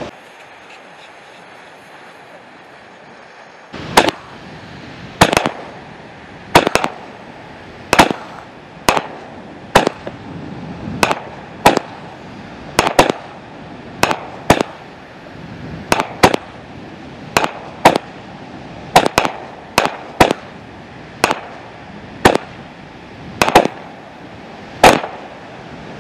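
Phantom Fireworks Emerald City 200-gram, 16-shot repeater cake firing. The first shot comes about four seconds in, then sharp launch thumps and bursting reports follow every second or so, often in quick pairs, to the end.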